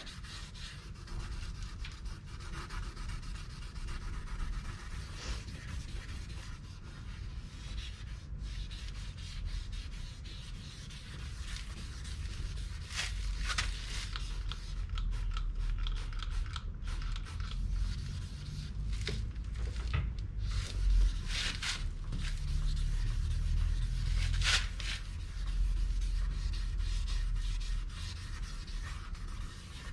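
Hand wet-sanding of a plastic headlight lens with a 2000-grit sanding disc on a hand-held pad: steady rubbing and scrubbing of wet abrasive over the lens to strip oxidation.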